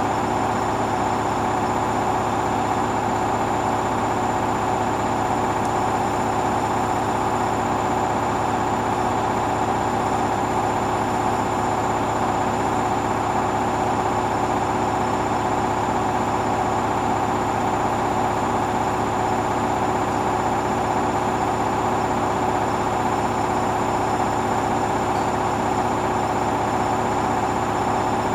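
Hoover washing machine in its final spin, drum turning at a steady speed with a constant motor whine and rushing noise, on a load that is very unbalanced.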